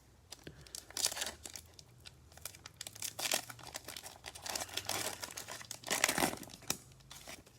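Trading-card pack wrapper being torn open and crinkled, in irregular rustling bursts.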